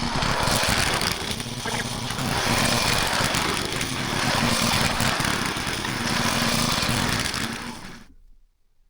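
Small gasoline engine of a garden tiller running under load, its level rising and falling every second or two as it works, then stopping abruptly near the end.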